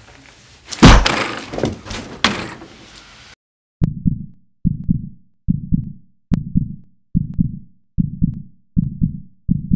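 A loud thump about a second in, its noise dying away over about two seconds; then, after a moment of silence, a heartbeat sound effect begins: steady low double beats, a little over one a second.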